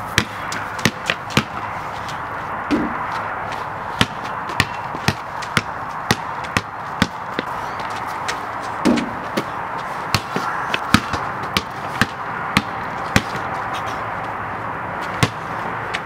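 A basketball bouncing on a concrete driveway: a run of sharp bounces, in stretches about two a second, with short pauses between runs, over a steady background hiss.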